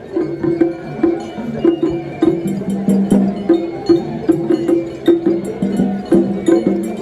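Music with repeated short low notes and sharp clicking percussion.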